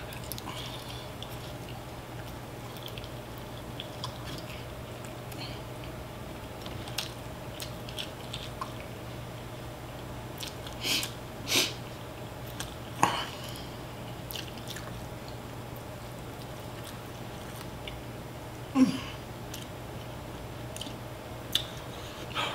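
A person chewing and biting fried chicken drumsticks, with wet mouth and eating sounds and a few short sharp louder sounds scattered through, the loudest about nineteen seconds in. A faint steady hum runs underneath.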